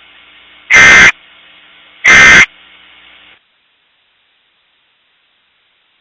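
Two short bursts of Emergency Alert System SAME end-of-message data tones, a little over a second apart: the close of the three-burst sequence that ends an alert. A faint hiss runs under them and cuts off about three and a half seconds in.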